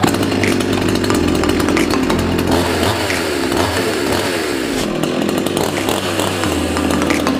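Oleo-Mac two-stroke chainsaw starting on a pull of the starter cord and running, revving up and down again and again.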